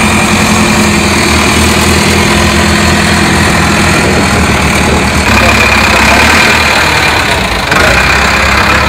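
Diesel engine of an Avia trial truck running at low revs as the truck crawls slowly over rough ground. Its note changes about five seconds in.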